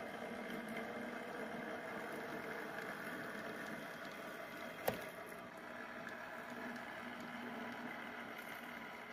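HO scale model diesel switcher running along the track with a steady, quiet mechanical hum from its motor and drive. A single sharp click comes about five seconds in.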